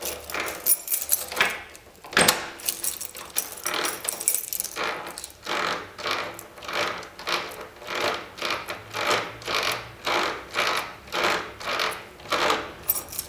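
Old door lock squeaking and grating as it is worked back and forth, a rasping stroke about every two-thirds of a second, with a sharp click about two seconds in. The squeak is the sign of a dry, unlubricated lock mechanism.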